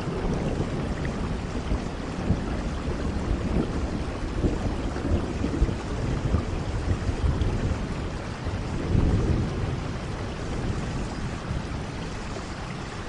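Steady rainfall, an even hiss, under low rumbles that rise and fall, the strongest swelling about nine seconds in.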